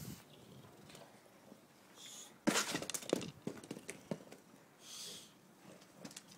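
Dog knocking a hollow plastic ball across stone paving: a sudden burst of clattering and scuffing about two and a half seconds in, lasting about a second, with softer scuffs around it.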